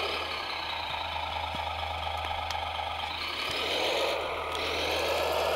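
Radio-controlled scale model Caterpillar 963B track loader driving over dirt: its drive motors and gearing whine while the tracks clatter, the whine rising in pitch about three seconds in.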